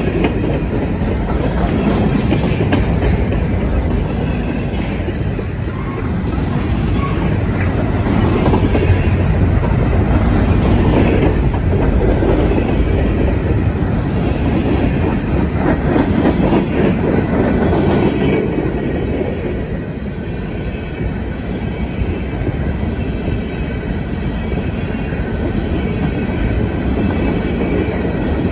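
Freight cars of a CN train (centerbeam flatcars, then covered hoppers) rolling past at speed. Their wheels make a steady loud rumble and clatter on the rails.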